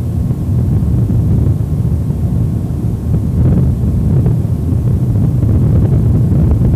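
Wind buffeting the microphone: a gusting low rumble that grows louder about half a second in.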